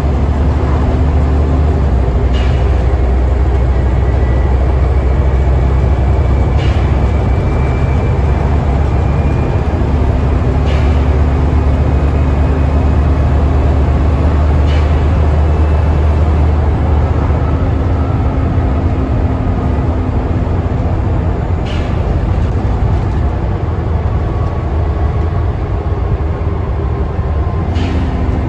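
Scania N94UD OmniDekka double-decker bus underway, heard from inside the upper deck: a steady low diesel engine drone with road and body noise. A short sharp knock or rattle comes about every four seconds, six times in all.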